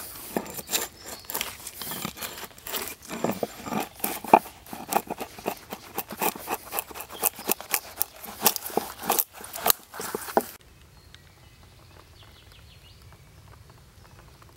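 Wood cracking and splintering in quick, irregular snaps as a split board is worked apart by hand. The snapping stops abruptly about ten seconds in, leaving only a faint outdoor background.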